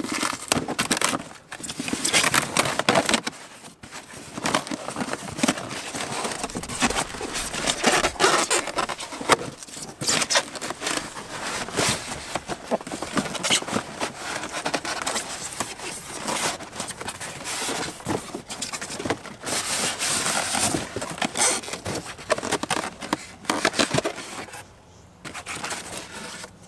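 Cardboard shipping box being torn open by hand, with repeated ripping, scraping and rustling of cardboard as the inner carton is pulled out; the styrofoam packing is handled near the end.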